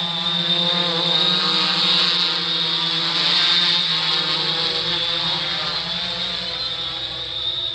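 3DR Solo quadcopter hovering and flying overhead on Emax MT2216 810KV brushless motors with Master Airscrew propellers: a steady multi-pitched whir with a high whine, the pitches wavering slightly as the motors adjust. It grows louder for a few seconds as the drone comes closer, then eases off. The owner finds these motors much quieter than the stock ones.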